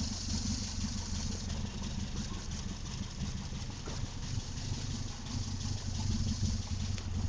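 1991 Suzuki Carry Futura's engine idling steadily, with a steady hiss over the low engine note.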